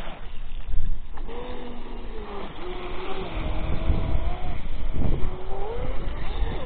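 6S electric RC speedboat at speed, its motor whine sliding up and down in pitch as it throttles through turns, over an uneven low rumble.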